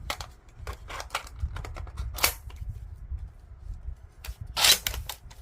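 Plastic clicks and snaps from a 3D-printed toy M700 rifle being handled, at irregular intervals, with a louder snap about two seconds in and the loudest one near the end, over a low rumble.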